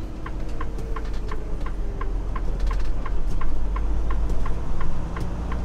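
Turn-signal clicker ticking evenly, about four ticks a second, over the low steady rumble of the semi truck's diesel engine inside the cab.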